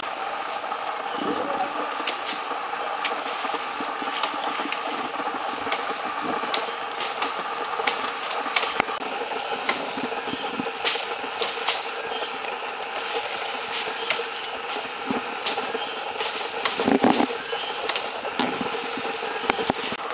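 Twigs, branches and dry leaves crackling and snapping as hikers push through dense undergrowth, many short sharp clicks over a steady drone.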